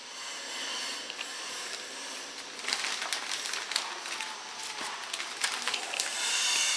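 Clear plastic packaging bag rustling and crinkling as it is opened and handled, with irregular sharp crackles from about two and a half seconds in.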